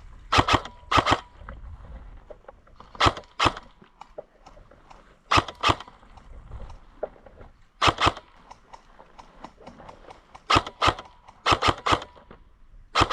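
Short, sharp sounds in quick pairs, a pair every two to three seconds.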